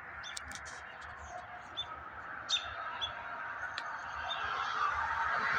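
Small birds chirping in short, scattered calls over a steady background rush that swells toward the end.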